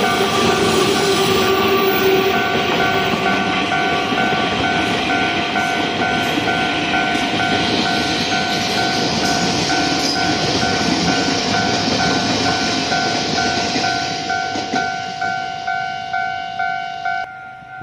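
A Taiwan Railways E200-class electric locomotive and its Chu-Kuang Express coaches passing over a level crossing, with wheels running on the rails. The crossing's warning bell rings steadily about twice a second the whole time. The sound cuts off suddenly just before the end.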